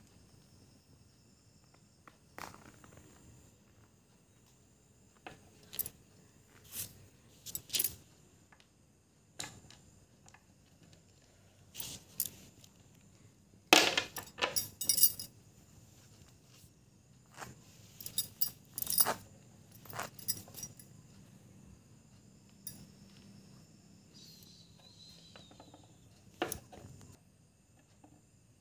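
Scattered light clicks, clinks and rustles of a printed book and a phone being handled. The densest cluster of clicks comes about halfway through and another a few seconds later.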